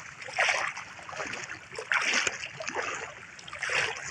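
Legs wading through shallow seawater, a splashing slosh with each stride about once a second.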